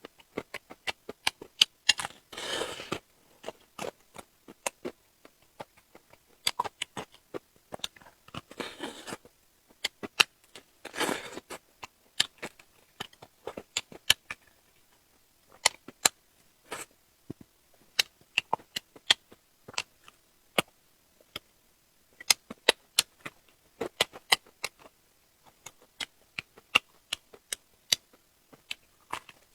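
A person eating close to the microphone: many quick, irregular, sharp mouth clicks and crunches. Three longer noisy bursts come about two, nine and eleven seconds in.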